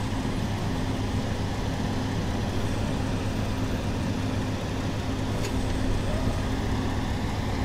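A steady low mechanical hum, like a motor running at idle, holding level without change.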